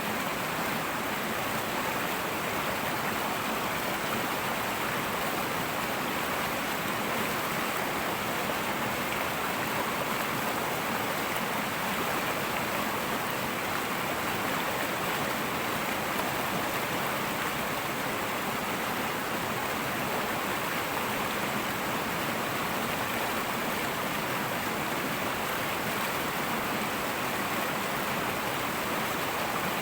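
Fast-flowing river rushing steadily over rocks, a constant even babble of water.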